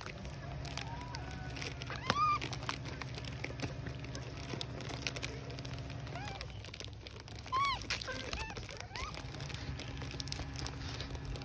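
Baby monkeys giving short pitched calls that rise and fall, about five in all, the loudest about two seconds in and again near the middle, over a steady low hum.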